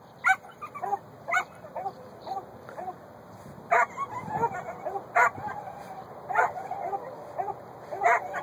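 A dog whining in high, wavering tones, broken by about six short, sharp yips.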